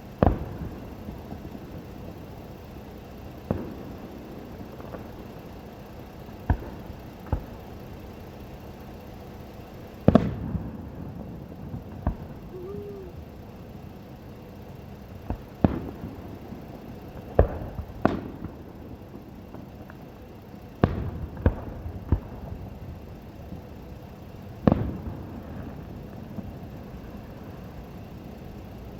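Fireworks bursting: about fourteen sharp booms at irregular spacing, a few in quick pairs, the loudest about ten seconds in.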